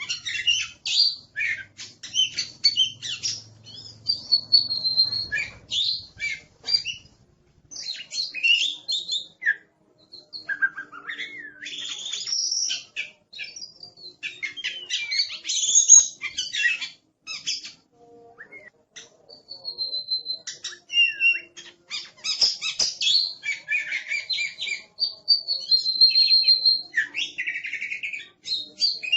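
Oriental magpie-robin (kacer) in full, aggressive song: a fast, varied run of chirps, slurred notes and clear held whistles, broken by a few short pauses.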